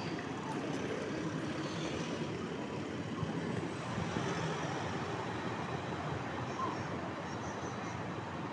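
Police van driving away: steady engine and tyre noise.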